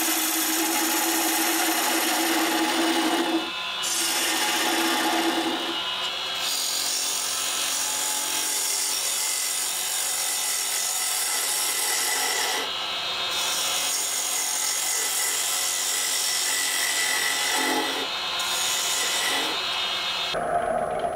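Turning gouge cutting into a spinning figured maple bowl on a wood lathe: a continuous hissing shear of wood as shavings peel off. There are a few brief breaks where the tool lifts off. The cutting stops shortly before the end, leaving the lathe running.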